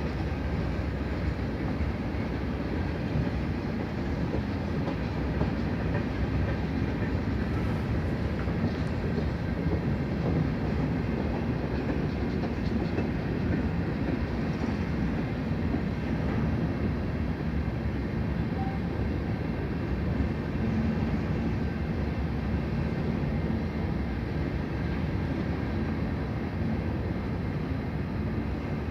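CN freight train rolling past, a steady rumble of wheels on rails that holds level throughout.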